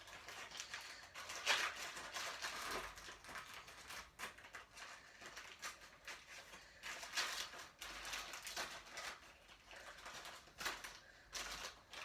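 Packaging being worked open by hand: irregular rustling, crinkling and tearing, with scattered small clicks and louder tugs a few times.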